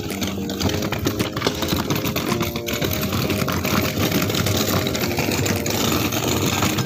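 Casters of a wheeled flight case rolling and rattling steadily over rough concrete as it is pushed along.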